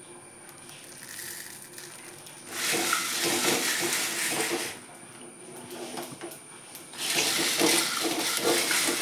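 Whole spices, curry leaves and dried red chillies sizzling in a metal pan as they are stirred, for the masala of a fish curry. There are two stretches of hiss of about two seconds each: one starts about two and a half seconds in, the other about seven seconds in.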